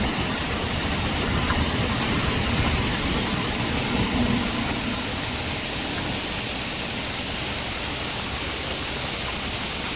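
Heavy rain pouring down steadily, a dense hiss of falling water with scattered drop ticks, easing slightly about halfway through.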